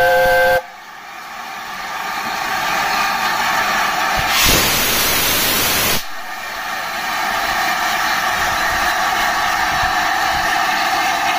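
Steam locomotive Sir Nigel Gresley's chime whistle sounding a steady chord that cuts off about half a second in. Steam hiss follows and builds, with a loud burst of steam for about a second and a half in the middle, then settles into a steady hiss.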